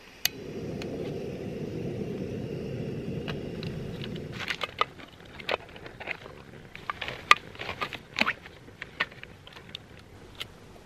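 Gas canister camping stove burning with a steady low rush for about four seconds. Then a run of sharp metal clicks and scrapes as a tin can is opened with the can opener of a folding pocket tool.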